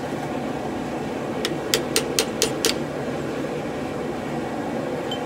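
Hand hammer striking a cold chisel to cut teeth into a 1075 steel bar held in a vise: six quick sharp strikes, about five a second, starting about a second and a half in, over a steady background noise.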